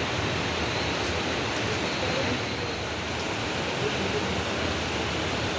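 Steady rushing noise with no clear rhythm or distinct events.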